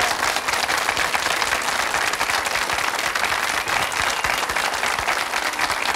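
Studio audience applauding, a dense, even patter of many hands clapping.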